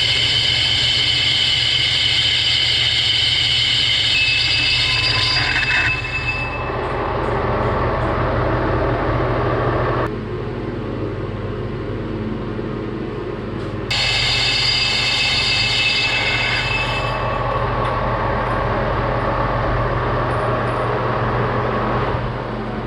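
Metal lathe taking a 50-thou-deep cut on a large metal faceplate blank. The cut gives a high ringing screech over the hum of the running lathe. The ringing stops about six seconds in and returns for a few seconds past the middle.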